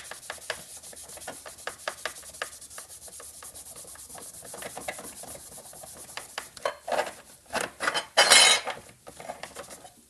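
A cloth rag rubbed briskly back and forth over a small sheet-metal cover plate: a quick run of scrubbing strokes, with a louder, harsher stretch of rubbing about eight seconds in.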